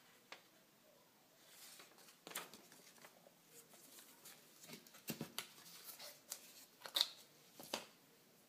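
Cardboard packaging being handled as a small product is unpacked: scattered light clicks, taps and rustles, the sharpest about seven seconds in.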